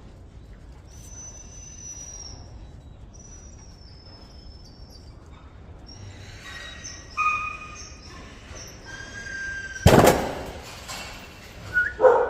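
Jindo puppies whimpering and yelping in high, thin calls, with one sharp loud sound about ten seconds in and a loud bark near the end.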